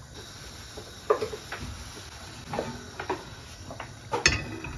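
Iron tawa knocking and clinking against the gas stove's grate about five times as it is turned over the flame to finish the naan, the strongest knocks about a second in and near the end, over a steady low hiss.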